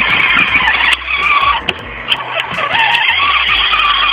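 A switched-on electronic toy making a loud, steady rushing noise with a wavering tone running through it. It drops back for a moment about a second and a half in.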